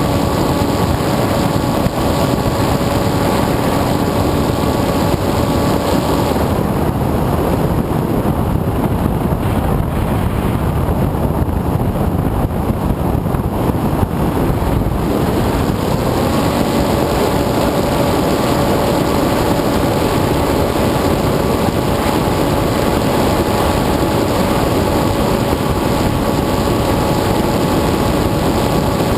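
An FPV aircraft's motor and propeller recorded on board, with steady wind rush. The motor's humming tone fades out about a fifth of the way in, leaving only wind noise for roughly nine seconds. It then comes back, rising briefly in pitch, and holds steady.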